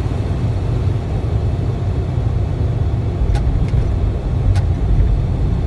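Steady low rumble heard inside the cockpit of a Dassault Falcon 7X business jet rolling out on the runway just after touchdown. Three faint short clicks come a little past the middle.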